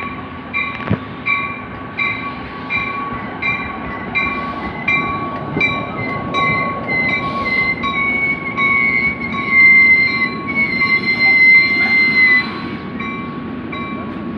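NJ Transit commuter train braking to a stop at a station platform, its brakes and wheels squealing high and loud in the seconds before it halts, the pitch sliding slightly lower, over the rumble of the cars. A warning bell rings steadily, about two and a half strokes a second.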